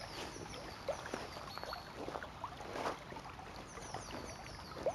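Shallow river babbling and gurgling over stones, with birds chirping.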